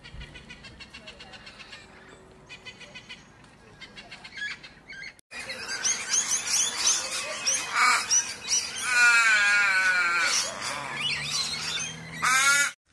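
Australian ringneck parrots chirping in quick, evenly repeated high notes. After a cut, louder mixed bird calls follow, with a long wavering warble in the middle and a sharp rising call near the end.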